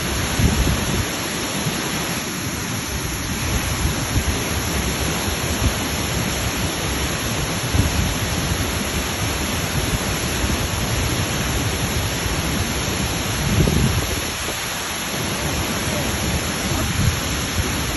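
Waterfall: a steady, unbroken rush of falling water, with a few brief low rumbles, the strongest about fourteen seconds in.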